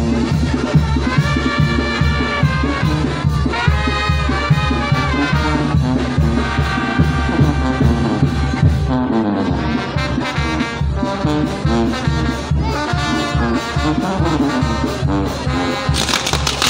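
Brass band music: trumpets and trombones playing phrases over a steady low drum beat. Near the end a loud fizzing hiss joins in as the fireworks on the castillo tower catch.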